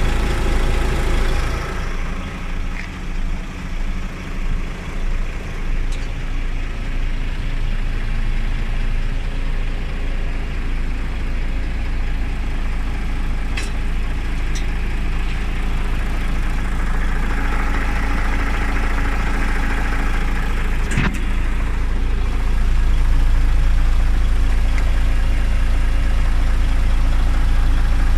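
DAF XF 460 truck's PACCAR MX-13 inline-six diesel idling steadily, heard from underneath the truck. A single sharp click comes about three-quarters of the way through, and the idle grows a little louder near the end.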